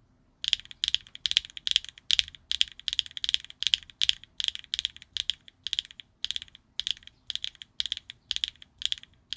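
HMX linear mechanical keyboard switches being pressed and released over and over, a crisp clack about two and a half times a second, starting about half a second in.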